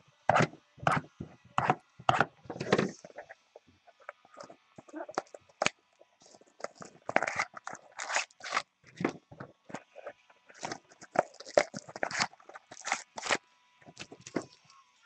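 Hands handling cardboard trading-card boxes and foil-wrapped packs on a table: irregular rustling, crinkling, scraping and light tapping.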